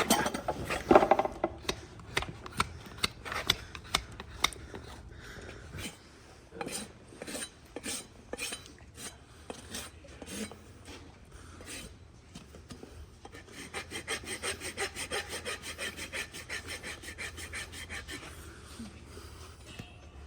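Farrier's hoof rasp scraping across the bottom of a horse's hoof to level it. The strokes are scattered at first, then settle into a fast, steady back-and-forth about two-thirds of the way through.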